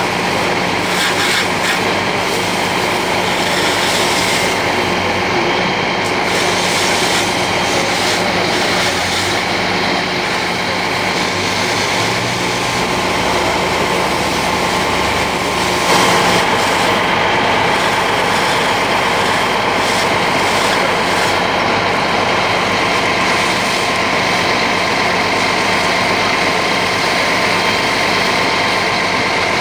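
A steady engine running, with a constant hiss over it, and one brief louder knock about 16 seconds in.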